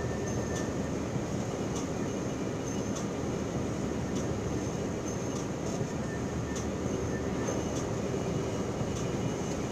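Steady engine and road noise of a truck driving at cruising speed, heard from inside the cab, with faint light ticks every second or so.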